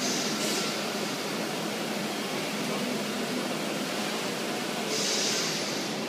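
PADE CNC machining centre running as its spindle head moves around the workpiece: a steady mechanical hum and hiss, with a brief high hiss just after the start and a longer one about five seconds in.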